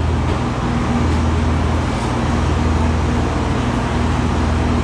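Dairy milking-system machinery running steadily: a loud low hum with a fainter tone that comes and goes in short beats.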